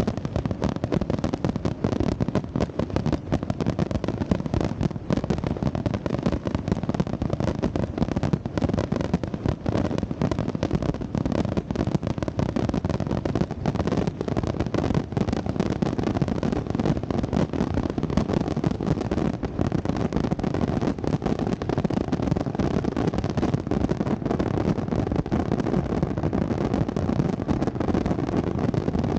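Fireworks display: a dense, continuous barrage of many rapid bangs overlapping without a pause.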